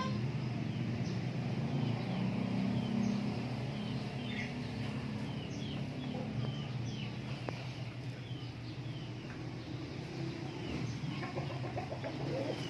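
Native chickens clucking and giving short, falling chirps, about two a second, over a steady low hum.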